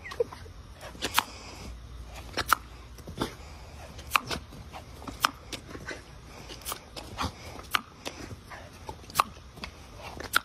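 A dog giving about ten short, sharp barks at irregular intervals, over the steady hiss of water spraying from a garden-hose nozzle.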